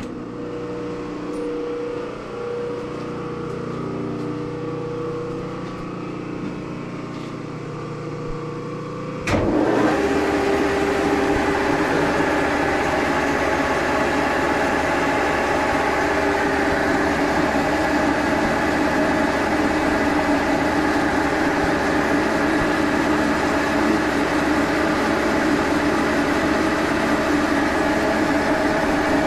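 American Rotary ADX rotary phase converter switched on with a click, then humming steadily. About nine seconds in, a milling machine's motor comes on with a sudden knock and runs with a louder steady whir over the converter's hum.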